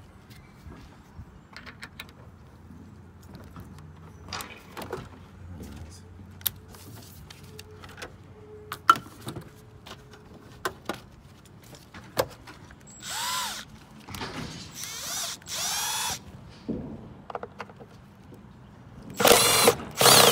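Cordless Milwaukee driver spinning screws out of a car's plastic air filter housing. It comes in short runs about 13 and 15 seconds in, then a louder, longer run near the end. Small clicks and knocks of parts and tools being handled come before.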